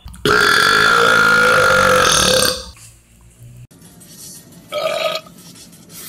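A man's long, loud belch lasting about two seconds, followed after a pause by a second, shorter belch about five seconds in.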